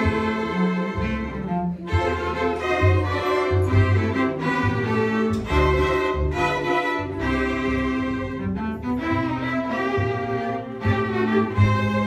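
Small string ensemble of violins, cello and double bass playing live, sustained bowed notes over a moving bass line.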